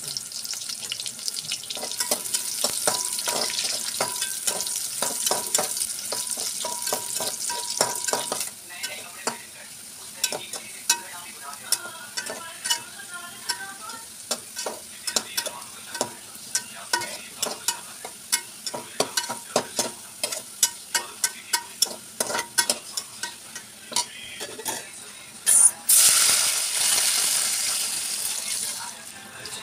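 Sliced onions frying in hot oil in a metal pot, sizzling steadily while a metal spoon stirs, scrapes and clinks against the pot. The sizzle is strongest in the first several seconds, then quieter under the repeated clinks. About 26 s in, water is poured into the hot oil and it bursts into a loud hiss that slowly dies down.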